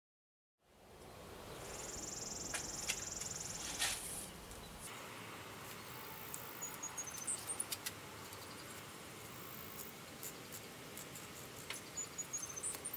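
Light clicks and rattles of flexible metal conduit being handled and fitted onto an attic-fan motor held in a vise, bunched together near the end. Behind them is a faint outdoor background, with a high steady buzz lasting about two seconds starting a second and a half in, and a few brief high chirps.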